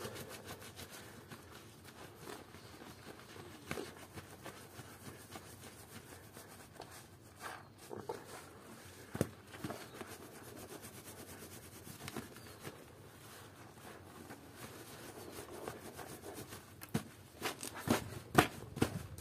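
Hands kneading and squeezing a foam-soaked plush toy: soft wet squelching and rubbing of thick soap suds, with small pops. Near the end the squeezes come quicker and louder as sharp wet squelches.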